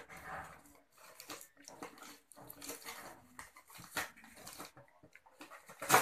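Paper and thin cardboard rustling and crinkling in irregular bursts as a baby's hands tear at a cardboard formula box and pull paper out of it, with sharper crackles at the start and just before the end.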